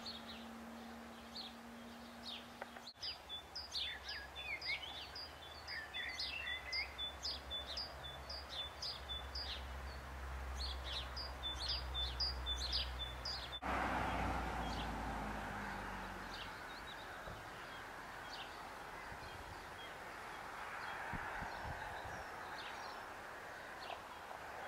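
Small birds chirping outdoors, many short high calls, busiest between about 3 and 14 seconds in, over a steady background noise with a low rumble. The background changes suddenly about 3 and 14 seconds in.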